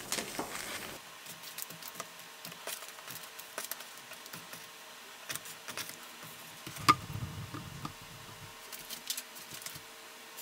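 Faint scattered taps and light plastic crinkles of small zip bags holding brass carburettor jets and washers being set down on a tabletop, with one sharper click about seven seconds in, over a faint steady hum.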